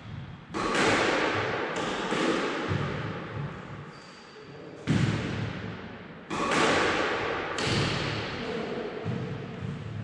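Squash ball struck by rackets and hitting the court walls in a backhand drill: sharp, hard hits every second or so with long echoes fading between them.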